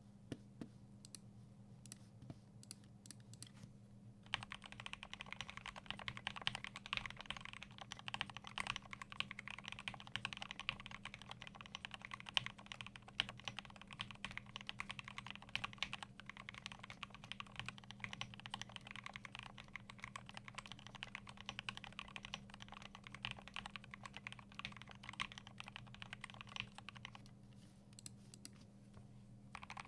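Typing on a GMMK Pro mechanical keyboard with lubed Everglide Aqua King linear switches, an aluminium plate and PBT doubleshot keycaps. A few single keystrokes come first, then fast continuous typing from about four seconds in, which pauses briefly near the end before starting again.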